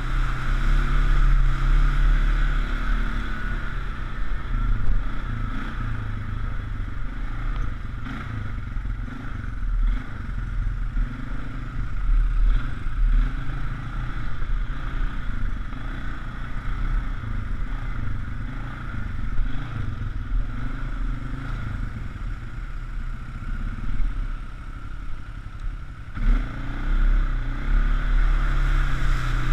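Polaris Sportsman 500 HO ATV's single-cylinder engine running under changing throttle as it is ridden along a dirt trail, close up from the rider's helmet. The engine eases off for a few seconds and picks up again a few seconds before the end.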